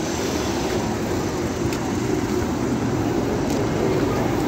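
Steady low rumble of motor vehicles on a street, with no sudden events.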